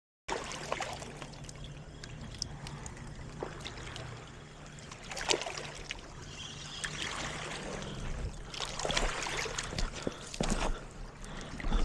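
Lake waves washing against a rocky shore, a steady rush of water with scattered small clicks and splashes, under a faint low steady hum.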